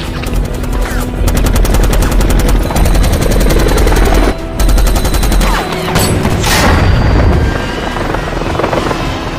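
Action-film soundtrack: a long burst of rapid automatic gunfire over music, with a helicopter's rotor noise as the scene moves on.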